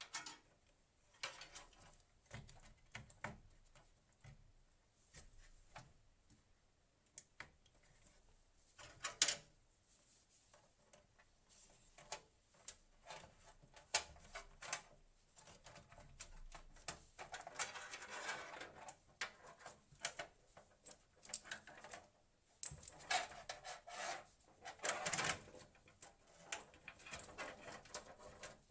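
Handling noises of hands working on computer hardware: scattered small clicks and knocks, with two stretches of rustling past the middle and near the end.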